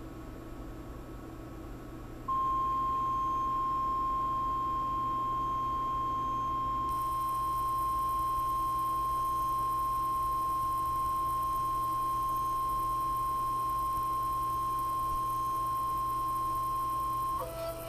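Kudo3D Titan 1 resin 3D printer's build-plate stepper motor whining at one steady high pitch. The whine starts abruptly about two seconds in and holds for some fifteen seconds. Near the end it breaks into shorter tones at changing pitches.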